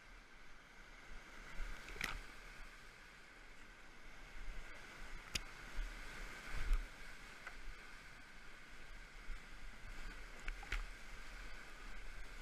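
Steady rush of big whitewater in a river at high water, heard from a kayak paddling through the rapid, with a few sharp knocks and splashes along the way.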